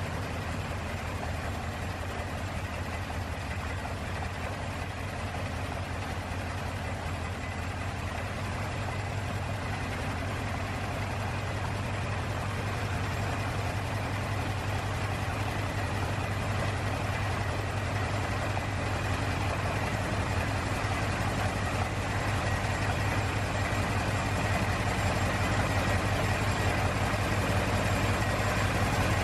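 Stearman biplane's radial engine idling on the ground, a steady low pulsing run with propeller noise, growing slowly louder over the stretch.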